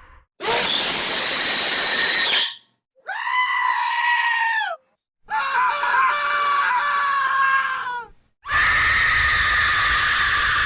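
A run of separate scream sound effects, four in a row, each ending abruptly before a short silence. The first is harsh and noisy. The next three are pitched wails; the third wavers, and the last is held long.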